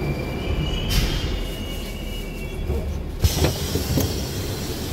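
Moscow Metro train coming to a halt at a station platform: a steady low rumble with a thin whine that fades out in the first two seconds. About three seconds in the doors open with a sudden rush of noise and a few knocks.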